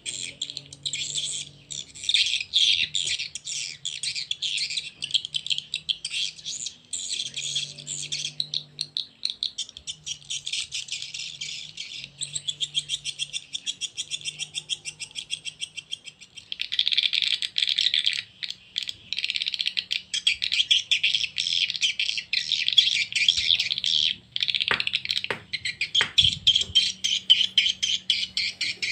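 Recorded swiftlet call sound played through a pair of tweeters from a swiftlet-house audio player: rapid, high-pitched chirping and twittering of edible-nest swiftlets, used as a lure call to draw swiftlets into a nest house. The twittering grows fuller about halfway through.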